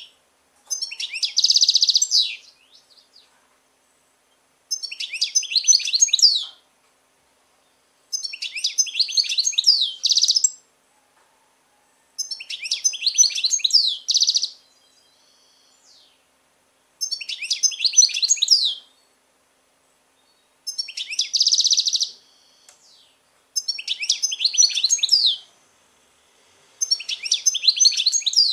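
European goldfinch singing: repeated phrases of rapid, high-pitched twittering, each about two seconds long, with short pauses between them.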